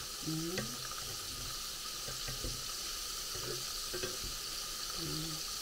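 Batter-coated prawns deep-frying in hot oil, a steady sizzle throughout, with a few light clicks of chopsticks against the pan.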